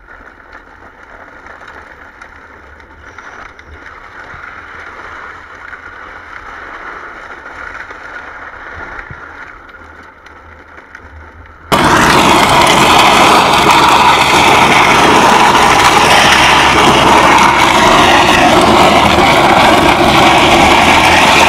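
Steady rolling and scraping noise as a plastic toy four-wheeler is towed over rough asphalt. About halfway through it cuts to a much louder, steady rushing noise of the tow run.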